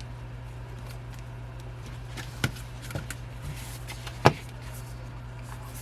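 A few short taps and clicks from handling album inclusions and photo cards, the loudest about four seconds in, over a steady low hum.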